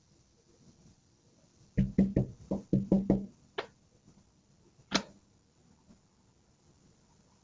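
Knocking on a door: a quick run of about eight knocks lasting under two seconds, then one more knock, and a single sharper knock about a second later.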